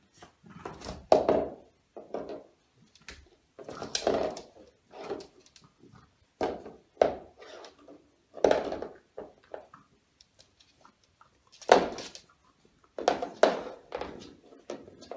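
A chow chow puppy rummaging headfirst in a wicker toy basket on a wooden floor, bumping it about: a string of irregular knocks and thuds, loudest about a second in and again near the end.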